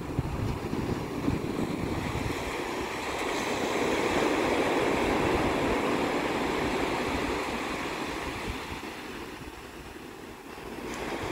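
Ocean surf breaking and washing up a sandy beach: a wave builds and rushes in a few seconds in, then the wash ebbs away before the next one comes in near the end.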